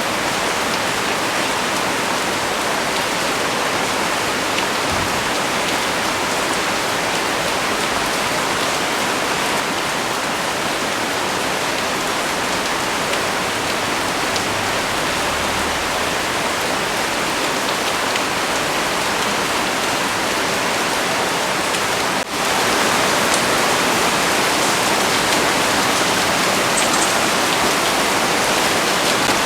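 Heavy rain pouring down, a steady, even hiss. About two-thirds of the way through it breaks off for an instant, then goes on slightly louder.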